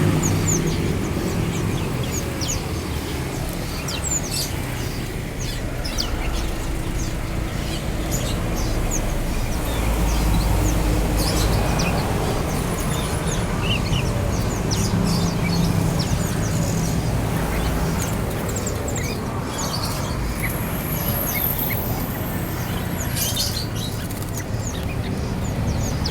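Many caged birds chirping and calling at once: a steady scatter of short, high chirps over a low rumble.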